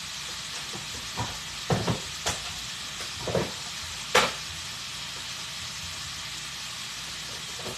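Shrimp frying in a skillet, a steady sizzle, with five short knocks of handling in the first half, the loudest about four seconds in.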